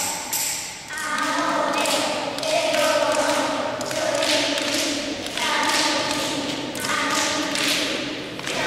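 A group of children singing together in held phrases of about a second each, with some thuds between them.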